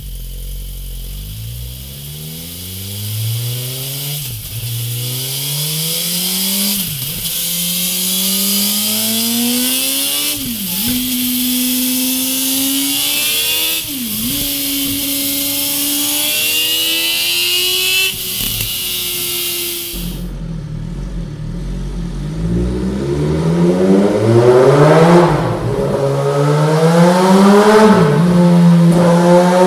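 Suzuki GSX-R 1000 inline-four accelerating up through the gears on its stock silencer, the pitch climbing and then dropping sharply at each gear change. About twenty seconds in it switches to the same engine through a MIVV Double Gun aftermarket exhaust, louder and harsher, again revving up through several quick gear changes.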